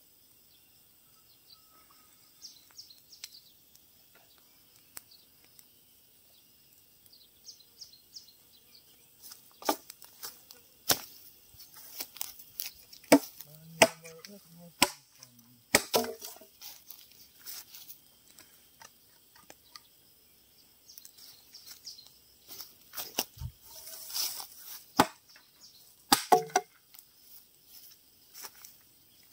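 Irregular sharp cracks and knocks from bamboo, loudest and most frequent in the second half, over faint insect chirping.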